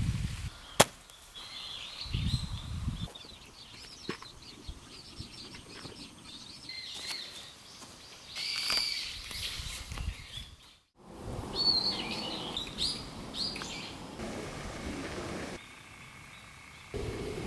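Birds chirping and calling in short bursts of high notes, with a sharp click about a second in and a few low rustles from hands working the soil and plastic mulch.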